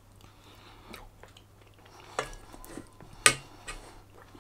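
Metal spoon clinking and scraping against a dish, with two sharp clinks about two and three seconds in, the second the loudest.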